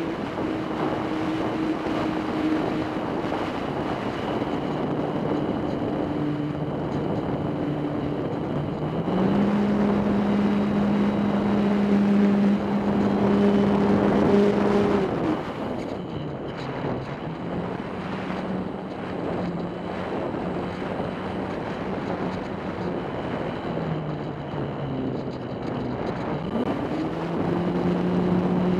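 RC airplane's motor and propeller droning in flight, heard from on board. The pitch steps up about nine seconds in, dips and drops lower around the middle, then climbs again near the end as the throttle changes. Wind rushes over the microphone throughout.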